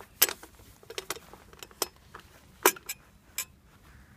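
Steel hand tools clinking against each other and the bolt as a socket extension and beam-type torque wrench are fitted onto an engine mount's center bolt: about half a dozen sharp metallic clicks at irregular intervals.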